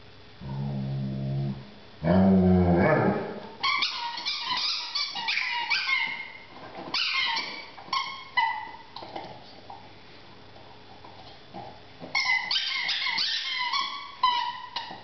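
A rubber squeaky dog toy being chewed by a German shepherd, giving quick trains of short, high squeaks in two bouts, the second near the end. Before them come two low, drawn-out vocal sounds, the second louder.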